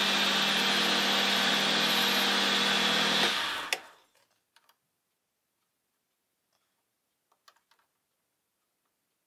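Metal lathe running, its spindle turning a four-jaw chuck with a steady hum, then switched off and winding down to a stop about three and a half seconds in. A few faint clicks follow.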